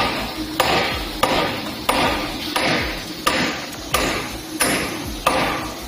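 A hammer striking metal grinder parts in steady, evenly paced blows, about nine strikes roughly two-thirds of a second apart, each leaving a short ring: parts of the planetary head are being knocked home into place.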